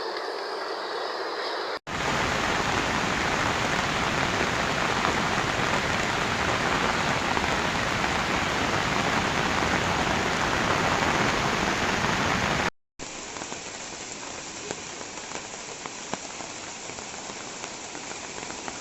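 Steady rush of flash-flood water and heavy rain, an even hiss with no distinct pitch. It is cut off abruptly twice, at about two seconds and again near thirteen seconds, and the last stretch is quieter, with faint ticks.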